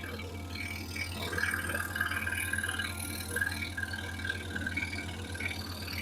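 Excalibur EX21 scroll saw running steadily with a very fine blade cutting through wood flooring: a constant low hum with a fast, even buzz from the blade's stroke.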